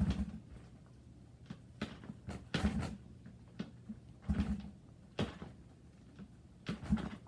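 An old dirt bike being kick-started over and over: about six short clunks a second or so apart, each a kick turning the engine over briefly without it firing. The bike won't start, which the rider puts down to the cold.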